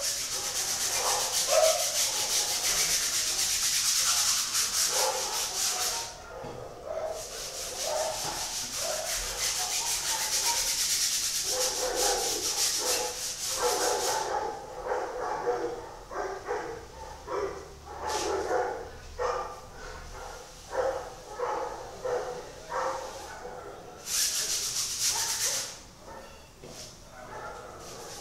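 Paintbrush scrubbing black paint onto a large canvas: long stretches of hissing, rasping brush strokes, broken by pauses about six seconds in and from about fourteen seconds until a last burst near the end. Short pitched whines come through in the quieter middle stretch.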